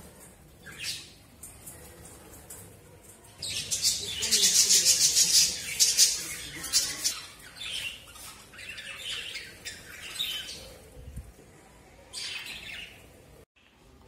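A flock of budgerigars chirping and chattering, loudest and densest from about three and a half to six and a half seconds in, then scattered calls.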